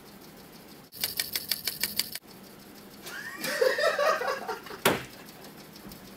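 Rapid clatter of computer keys, about ten quick clicks over a little more than a second. A man laughs, then comes a single sharp click.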